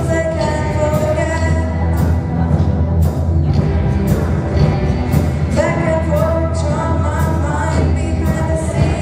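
Live rock band: a singer's voice over electric guitars, electric bass and a drum kit with a steady beat, amplified in a hall. The voice drops out for a couple of seconds in the middle while the band plays on.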